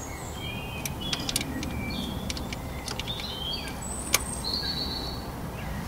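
Scattered clicks of a small ratchet on the tiny bolts of a camshaft central magnet adjuster, with one sharper click about four seconds in. Birds chirp in short high calls in the background.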